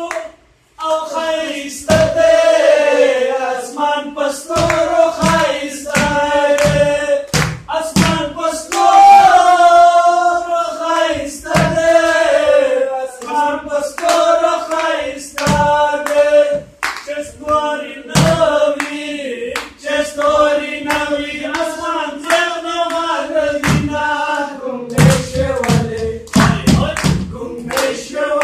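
Men singing a Pashto folk song, the melody carried in long held, wavering notes, with hand claps keeping a steady beat. A quicker run of low knocks comes in near the end.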